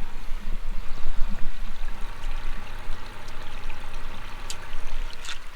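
Surface water running and trickling across a waterlogged field, with a steady low hum underneath. The water is coming up out of the ground because the drainage tile is plugged.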